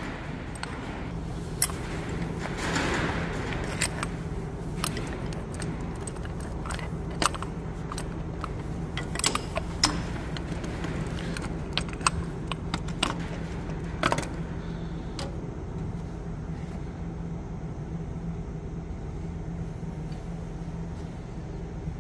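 Metal tools and clutch parts clinking and scraping at irregular intervals as a tractor clutch is assembled, over a steady low hum. The clinks thin out after about fifteen seconds.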